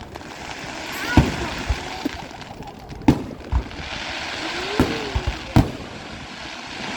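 Fireworks display: a string of sharp bangs from bursting shells, with a crackling hiss filling the gaps between them.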